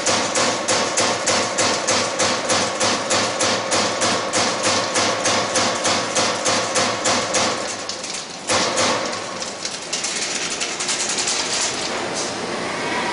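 A 1996 Strippit 1250XP/20 CNC turret punch punching sheet metal in a rapid, even series of strokes, about four to five a second, over the steady hum of the machine. The punching stops about seven and a half seconds in, leaving the machine running steadily, and this running sound gets suddenly louder about a second later.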